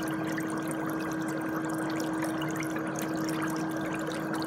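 Electric foot spa running with its bubble jets on: a steady motor hum under continuously churning, bubbling water.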